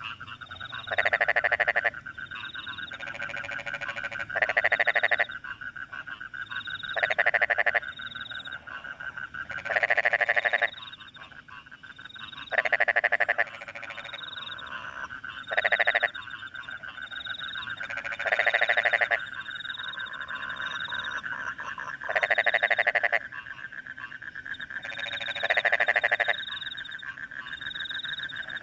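Rice-paddy frogs calling after rain: loud pulsed croaks about a second long, repeating every two to three seconds, over a steady trilling chorus. Crickets chirp in short high notes about once a second behind them.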